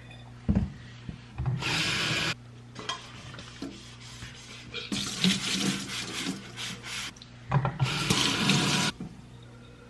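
Washing up at a kitchen sink: a sponge scrubbing with powdered dish soap in three bursts of about a second each, with a short knock about half a second in.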